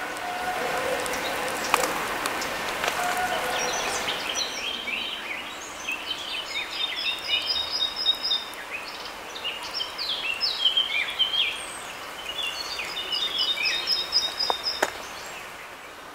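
A songbird singing long phrases of rapid, high, falling notes. The song starts about four seconds in, pauses briefly, and runs again until near the end, over a steady background hiss.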